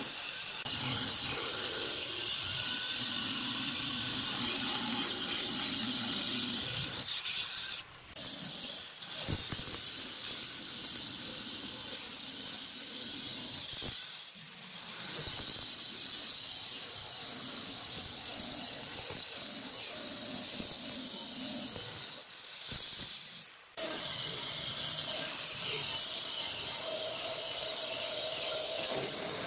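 Handheld electric stone cutter with a diamond blade wet-cutting a granite slab: a steady, high grinding hiss of the blade running through the stone. It breaks off briefly about eight seconds in and again near twenty-four seconds.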